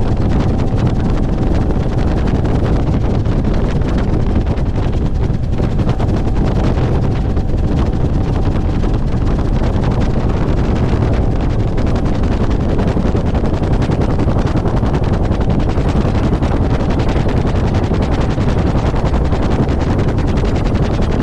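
Bell UH-1 Huey helicopter in flight: steady, rhythmic rotor-blade thumping over the engine noise, with wind buffeting the microphone.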